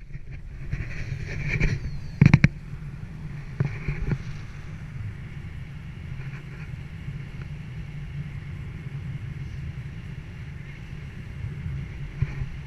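Wind rushing over the camera microphone in fast flight under a speedflying wing: a steady low rumble, with a few sharp knocks about two seconds in.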